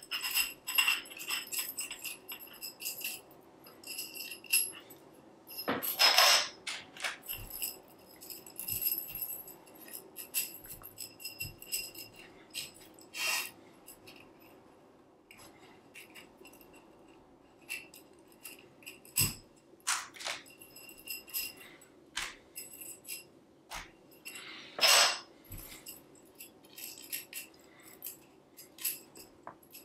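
Irregular clicks, clinks and light jingling as the struts and barbed tendon connectors of a tensegrity structure are handled and pulled apart, with faint ringing between the clicks. Two louder, longer rattles come about six seconds in and about twenty-five seconds in.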